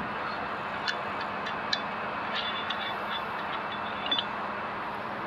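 Steady background noise with a faint low hum, and a few light clicks scattered through, about four in all.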